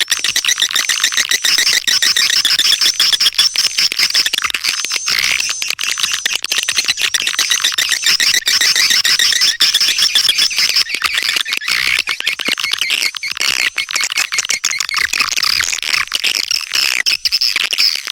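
Swiftlet call sound: a dense, continuous high twittering of edible-nest swiftlet chirps, the lure call played to draw swiftlets into a nesting house.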